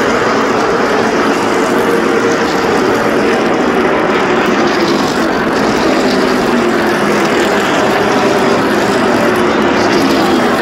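Several NASCAR Cup stock cars' V8 engines running together in a loud, steady drone, their pitch shifting slowly.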